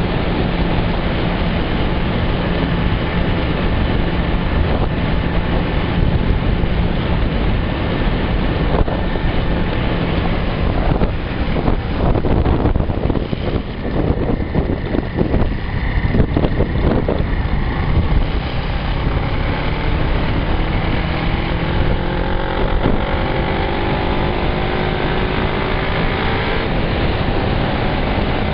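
Motorcycle engine running under heavy wind noise on the microphone while riding. The engine note breaks up around the middle as the bike slows for a tight bend, then climbs steadily in pitch as it accelerates away.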